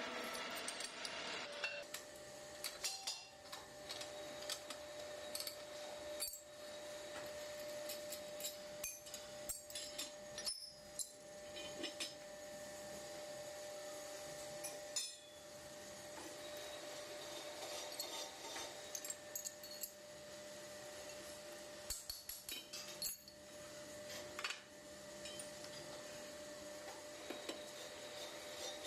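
Pillar drill running with a steady hum while it bores bolt holes in the flange of a cast-iron truck brake drum, with frequent sharp metal clinks and knocks from the steel drilling jig plate and tools being handled.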